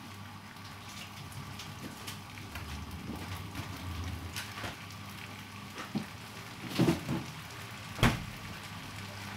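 Chicken pieces frying in a pan over a gas burner: a steady light sizzle with fine crackles. A few louder knocks come near the end.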